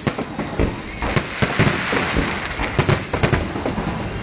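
Fireworks display: many shells bursting in quick succession, a run of sharp bangs and crackles over a continuous rushing noise.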